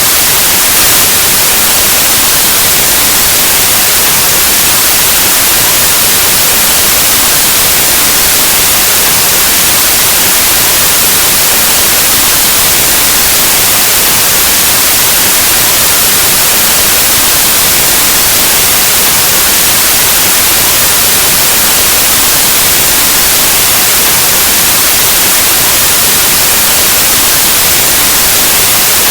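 Steady, loud white noise: even static hiss with no changes.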